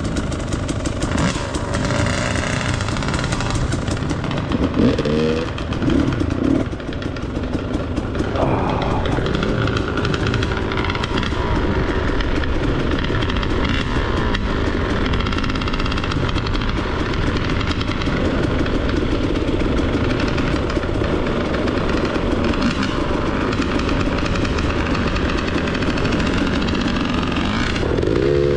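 Dirt bike engine running under varying throttle, revving up briefly about five seconds in and again near the end.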